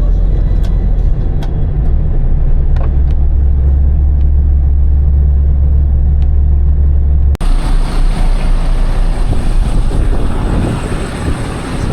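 Heavy truck's steady low engine and road drone heard inside the cab while driving. About seven seconds in it cuts off abruptly and gives way to a louder, hissier noise.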